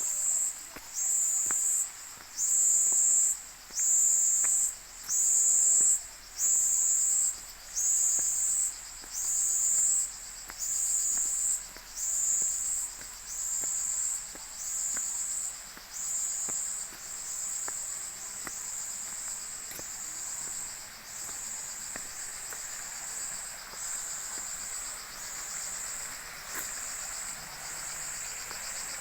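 An insect chirring in loud, high-pitched pulses about once a second; about halfway through, the pulses grow weaker and run together into a steady buzz.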